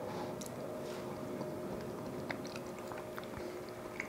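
Faint chewing of a mouthful of thick split pea soup, with a few small clicks. A light tick near the end as the spoon goes back into the bowl.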